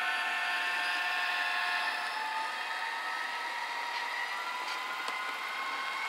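HO scale model diesel locomotives running along the layout track, giving a steady whine of several tones that slowly rises in pitch as the train picks up a little speed.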